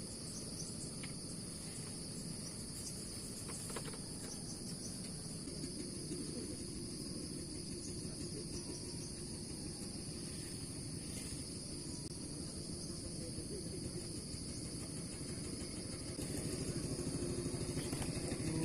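Steady high-pitched chorus of insects over a low rumble that grows louder near the end.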